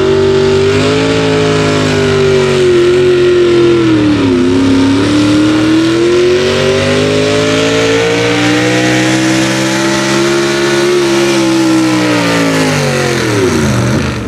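Chevrolet pulling truck's engine running at high revs under full load as it drags a weight-transfer sled. The pitch sags about four seconds in and climbs back, then drops sharply near the end as the throttle comes off at the end of the pull.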